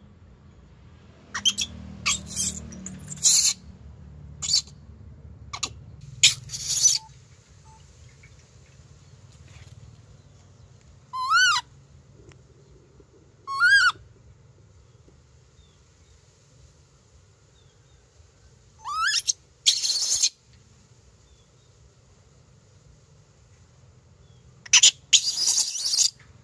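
A baby macaque calls three times in short, high-pitched coos that rise and fall. Several short harsh bursts, one near the end the loudest, fall among and around the calls.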